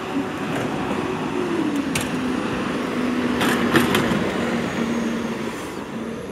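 Heavy diesel engines of a city refuse truck and a wheel loader running as they pull up, the engine note dropping in pitch after about a second and a half. A few short clanks about two and three and a half seconds in.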